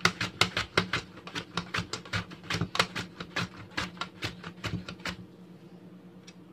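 Raw plantain rubbed back and forth over a plastic mandoline slicer's blade, a sharp rasping cut on each stroke, about five a second. It stops about five seconds in, over a steady low hum.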